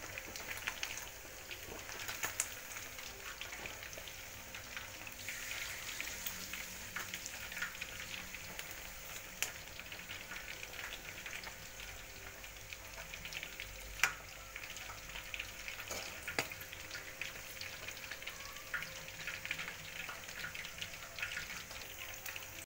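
Spice-braised (ungkep) chicken pieces deep-frying in hot oil in an aluminium wok: a steady crackling sizzle with scattered sharp pops, the loudest about 14 seconds in. The chicken is nearly done.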